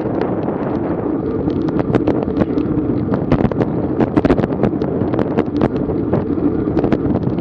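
Strong wind buffeting an action camera's microphone on a racing bicycle at speed, a steady rumble with many irregular sharp clicks and rattles, busiest around the middle.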